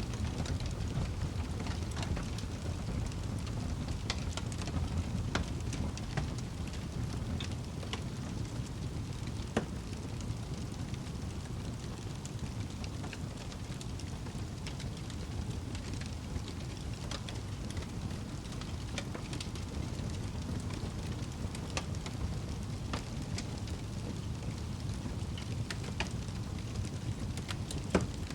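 Wood fire burning in a fireplace: a steady low rumble of flames with scattered small crackles and pops, two sharper pops about ten seconds in and near the end.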